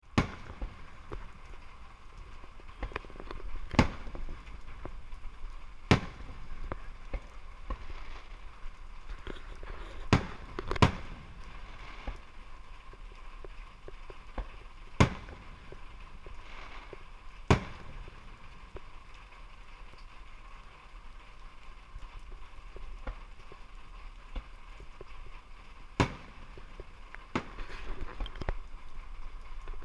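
Fireworks going off: a string of sharp, irregularly spaced bangs, the loudest about 4, 6, 10 to 11, 15, 17.5 and 26 seconds in, with smaller pops between them.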